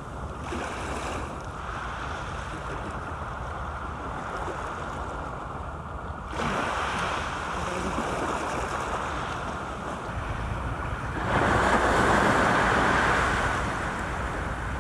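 Small waves washing against the foot of a concrete seawall, with wind buffeting the microphone. The noise swells louder for a couple of seconds near the end.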